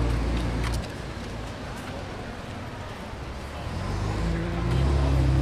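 Street traffic: a motor vehicle's low engine hum is loud at the start, drops away within the first second, and builds up again near the end as another vehicle approaches. Steady city-street noise runs underneath.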